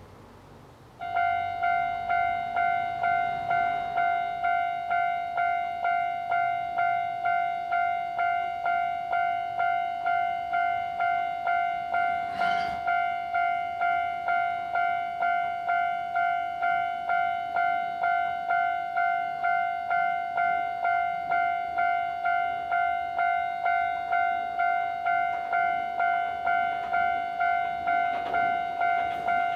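Railway level-crossing warning bell. It starts about a second in and rings a steady, repeated ding, each strike fading quickly, signalling an approaching train. Near the end the train's rumble begins to rise under it.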